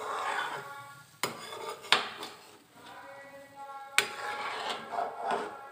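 A perforated metal ladle stirs thick kadhi in an aluminium kadhai, with wet swishing and three sharp clinks of the ladle against the pan: about a second in, just before two seconds and at four seconds.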